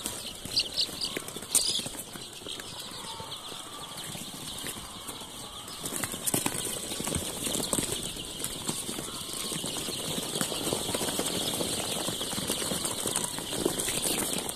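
A large flock of young chicks peeping continuously, with rustling and scurrying in wood-shaving litter that grows louder about halfway through.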